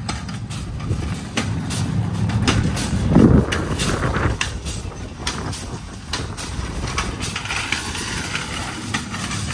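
Metal shopping cart rolling fast over a concrete sidewalk, its wheels and wire basket rattling, with a louder bump about three seconds in.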